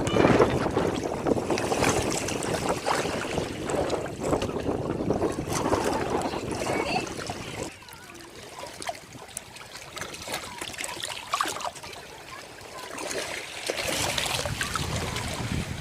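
Ocean waves washing up on a beach: a splashing wash for the first seven or so seconds, quieter after, and another wave coming in near the end.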